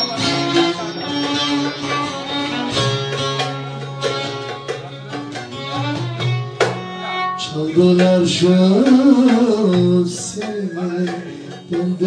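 Bağlama (long-necked Turkish saz) played in a Turkish folk bozlak, with quickly struck, ringing plucked notes. About eight seconds in, a man's voice comes in with a long, wavering sung line over the strings.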